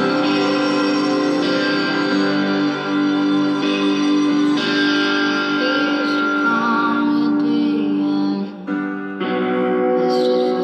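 Electric guitar playing slow, held notes and chords. The music dips briefly about eight and a half seconds in, then picks up again.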